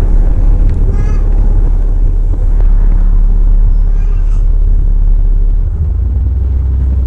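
Alexander Dennis Enviro 400 double-decker bus on the move, heard from inside: a loud, low engine and road drone with rattling. There are short squeaks about a second in and again about four seconds in, and the drone drops a little and settles near the end.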